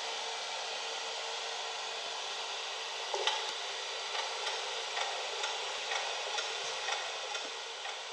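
Gauge 1 model BR 94 steam locomotives giving a steady steam hiss, with soft regular clicks or chuffs about twice a second from about three seconds in, as the engines get moving.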